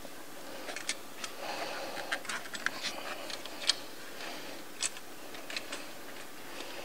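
Coolant hoses and their plastic fittings being worked loose by hand in an engine bay: irregular light clicks, taps and a short rubbing, with a couple of sharper clicks a little past the middle.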